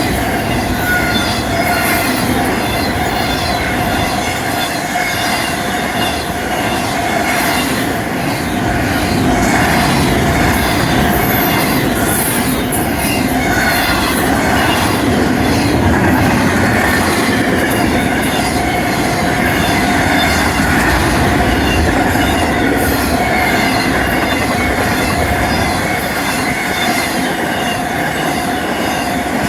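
Loaded intermodal freight cars rolling past at track speed: a steady loud rumble of steel wheels on rail, with a continuous high wheel squeal held at one pitch.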